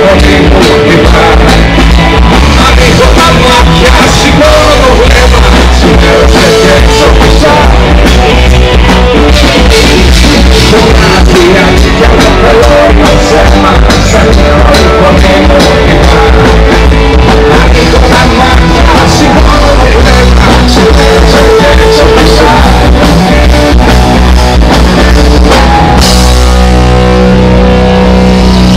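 Live rock band playing loud: distorted electric guitars, bass and drum kit, with a singer. About two seconds before the end the drums stop and a held guitar chord rings on.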